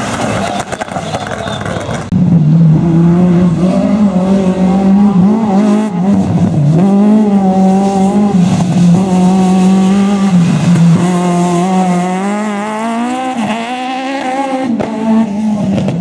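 Rally car engine at full throttle on a tarmac stage, revs climbing and falling repeatedly through gear changes and lifts for the corners. A different car passes in the first two seconds before the sound changes abruptly to the hatchback's steadier, higher engine note.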